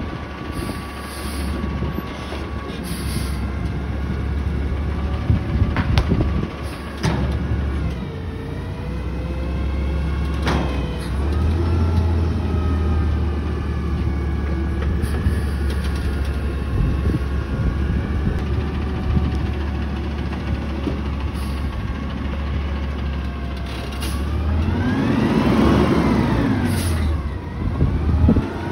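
Natural-gas-powered front-loader garbage truck running and pulling away, its engine revving up and down in rising and falling whines, with a few sharp clunks in the first ten seconds. Near the end it drives close by, revving loudest.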